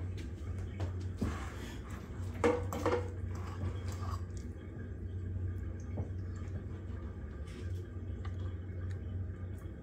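A metal spoon scraping and tapping in a small ceramic bowl, a few light clicks spread through, over a steady low hum.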